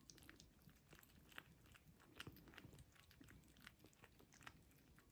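Faint chewing and smacking as a Turkish Van mother cat and her kittens eat chunks of wet cat food off a plate: a scatter of small, irregular clicks.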